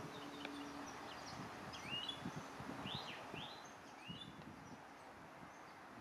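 Faint wetland ambience with birds calling in the background: short hooked chirps, several in a row between about two and four and a half seconds in, over a steady hiss.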